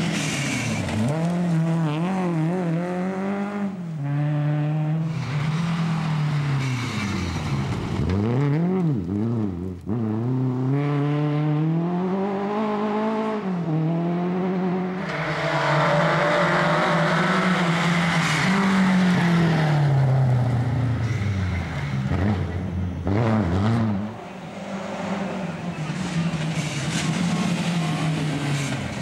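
Lada rally car's engine revving hard on a gravel stage, its pitch climbing and dropping again and again through gear changes and lifts off the throttle. Loose gravel and tyres hiss as the car slides through a corner about halfway through.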